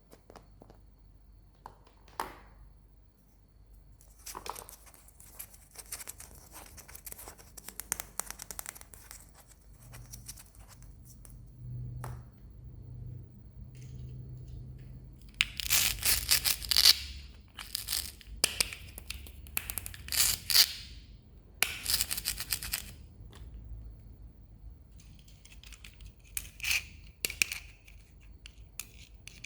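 Plastic toy packaging being handled and torn open. A few clicks and rustles come first, then several loud tearing rips in the second half, then lighter crinkling.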